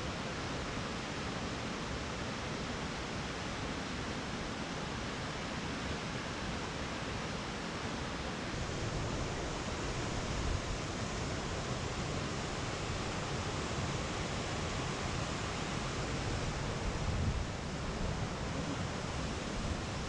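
Steady rushing of a waterfall, about 50 feet high, spilling into its plunge pool.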